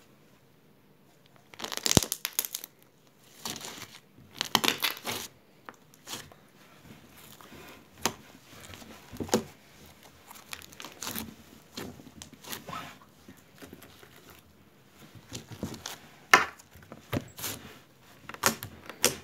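Hands squeezing, stretching and poking slime: irregular squishing and crackling with sharp little pops. It starts about a second and a half in and goes on in uneven bursts.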